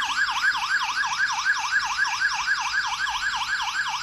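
X10 alarm system's electronic siren sounding, set off by the remote's SOS emergency button: a loud, fast warble sweeping up and down in pitch about four times a second.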